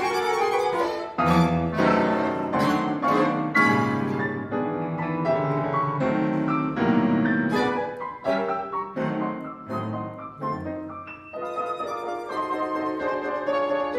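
Contemporary classical chamber music: solo piano playing struck chords and runs with deep bass notes, with violin and cello.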